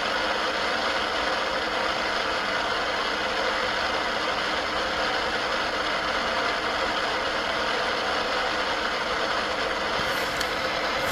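Steady hiss of static from a ghost-hunting EVP device, with no voice coming through it in answer.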